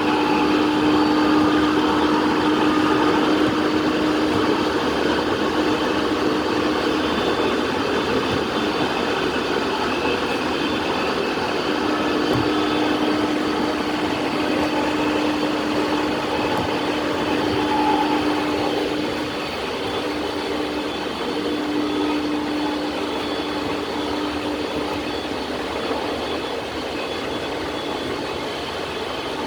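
E217 series electric commuter train running, heard from inside the car: a steady rolling noise with a held motor hum that drops out now and then, easing slightly after about twenty seconds.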